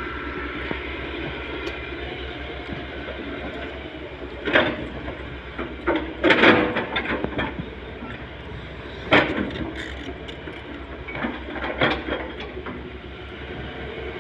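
Tata Hitachi 210 LCH tracked excavator's diesel engine running steadily under load, with a faint whine from its hydraulics. Several loud, sudden bursts of noise break over it, the loudest about halfway through.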